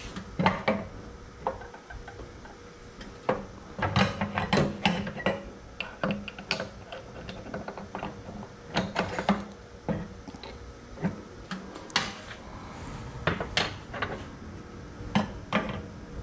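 Steel connecting rods, pistons and wrist pins clinking and knocking against a steel pin-setting fixture and workbench as they are handled, irregular sharp metal knocks, some in quick clusters.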